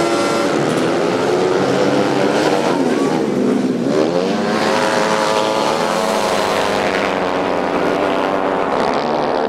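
Several youth speedway motorcycles racing around the track, their engines revving up and down and their pitches rising and falling as the bikes pass.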